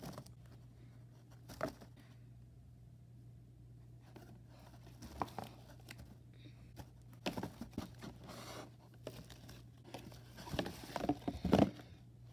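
Cardboard rustling and scraping as hands open the flaps of a homemade cereal-box vending machine and drop small toy figures inside, with scattered light knocks. The handling is sparse at first and busier in the second half, with the loudest knocks near the end.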